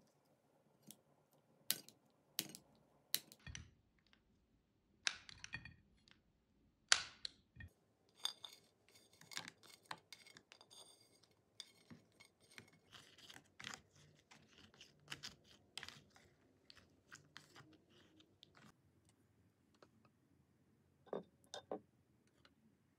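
Light kitchen handling: a few sharp clicks and snaps, then a run of small rapid taps and scrapes as pieces of dried sweet potato slide off a ceramic plate into a plastic yogurt tub, with two more knocks near the end.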